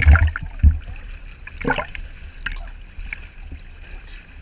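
Sea water sloshing and splashing at the surface right against the camera, with low buffeting thumps in the first second and a short splash about a second and a half later.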